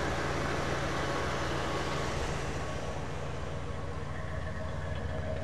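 1974 Mercury Colony Park's 460 cubic-inch four-barrel V8 idling smoothly and steadily, its deep even hum a little softer in the second half.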